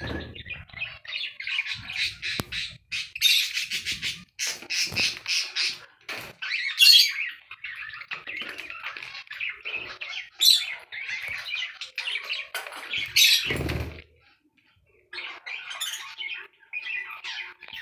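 Budgerigar chattering and squawking almost without pause, with a flutter of wings right at the start as it takes off. There is a dull thump about 13 seconds in.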